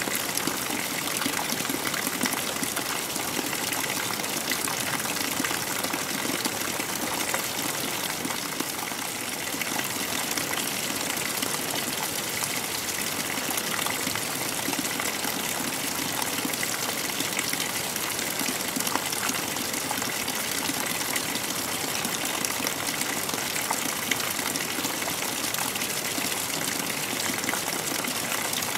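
Steady rush of a mountain river's flowing water, an even unbroken noise with no pauses.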